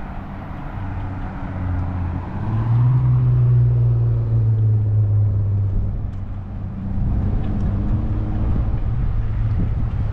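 A motor engine running with a low, steady hum. It grows louder and slightly higher in pitch about two and a half seconds in, then eases back down after about six seconds.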